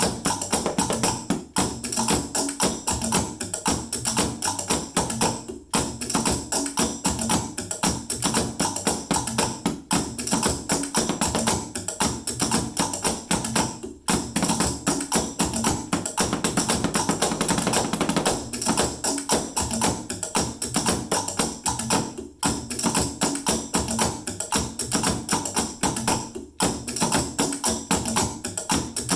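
A drum jam played on household found objects, such as sticks tapping plastic Tupperware containers, in a fast, steady rhythm with bright jingling percussion over it.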